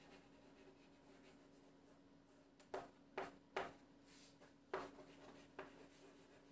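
Faint writing: about five short strokes on a writing surface, bunched between about three and six seconds in, over a low steady hum.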